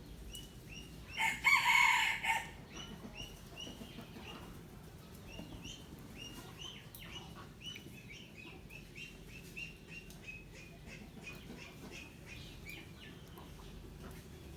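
A rooster crows once, loud and brief, about a second in. High, thin peeping from young poultry follows, repeating about twice a second.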